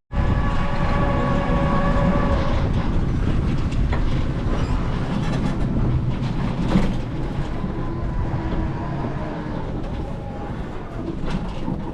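A vehicle in motion: a steady, loud rumble and rattle of a ride on the road, with a held pitched whine for the first few seconds.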